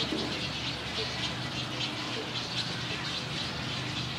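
A crowd of nesting birds at a rookery calling together: a dense, unbroken chatter of short high calls, several a second, over a faint steady low hum.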